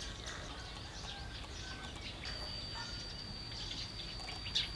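Birds chirping here and there, with a steady high-pitched tone setting in about two seconds in and a short sharp click near the end.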